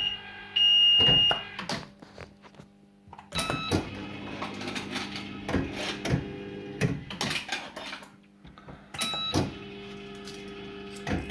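Firecracker fruit machine paying out a £2 win. A high steady electronic tone sounds for about a second and a half, then after a short lull comes a run of sharp metallic clicks, one or two a second, with electronic tones under them as the coins are paid out.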